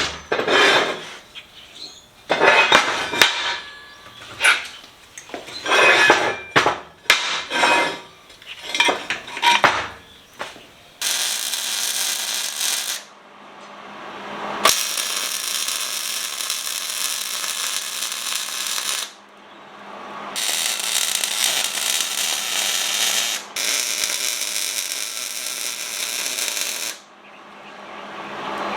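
Steel angle-iron pieces clanking and knocking as they are handled. From about a third of the way in, an electric welder runs an arc in four long stretches of steady hissing crackle, each several seconds, stopping abruptly between welds as the stand's angle-iron frame is welded up.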